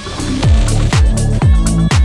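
Electronic dance background music: a heavy kick drum with a dropping pitch about twice a second over deep sustained bass and crisp percussion, the full beat coming back in just after the start following a quieter build.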